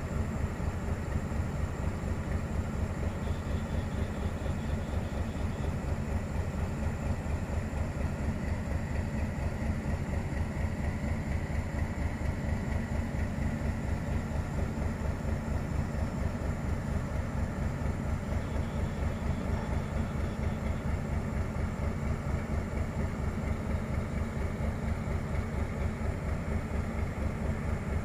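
Diesel locomotive engine idling steadily with an even, low throb.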